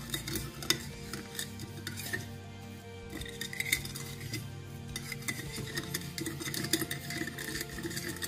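Metal spoon stirring a liquid dressing in a small ceramic bowl, tapping and scraping against the bowl in quick irregular clinks as the sugar is dissolved.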